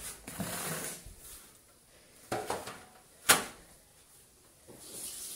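Rustling and squishing of a gloved hand working moist bran dough in a plastic bowl as flour is poured in at the start, with one sharp knock a little over three seconds in.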